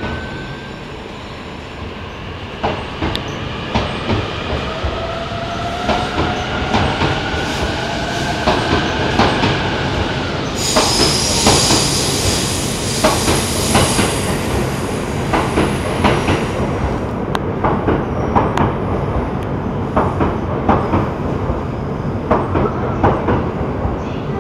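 E657 series electric express train accelerating out of the station past the platform, its motor whine rising slowly in pitch for the first ten seconds or so. Wheels click steadily over the rail joints throughout, and a high wheel squeal joins in from about halfway for several seconds.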